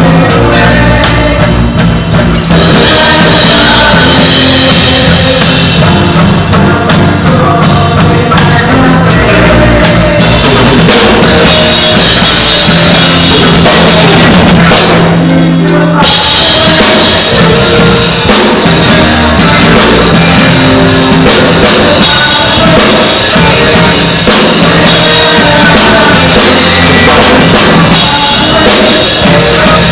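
Live rock band playing, with the drum kit loud and close: kick, snare and cymbals driving a steady beat under sustained chords.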